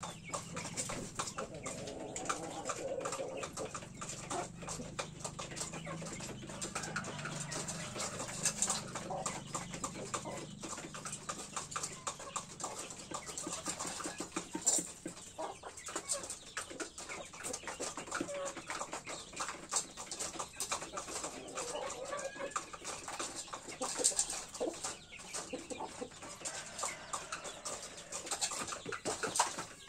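Chickens clucking now and then, over frequent light ticks of beaks pecking feed from a metal tray.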